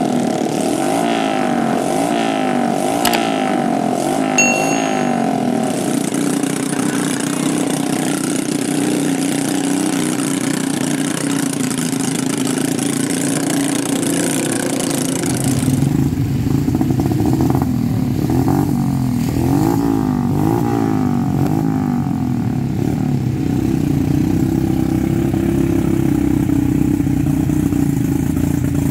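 Small motorcycle engines revving up and down over and over as riders force bikes loaded with sacks of rice through deep mud. About halfway through a deeper, steadier engine drone comes in under the revving.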